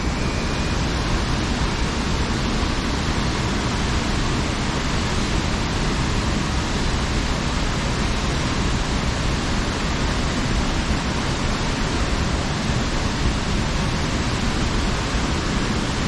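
Athirappilly waterfall crashing into the river pool below: a steady, unbroken rushing roar of falling water.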